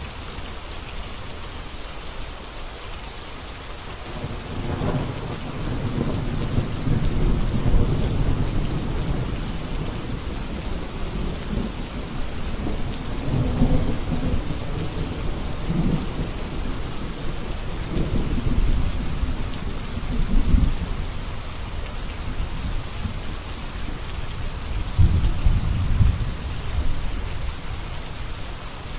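Steady rain with thunder rumbling over it, a long rolling rumble from about four seconds in to about twenty seconds in, and another near the end.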